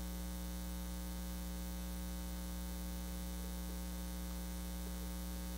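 Steady electrical mains hum, a low buzz with a ladder of evenly spaced overtones, with no other sound over it.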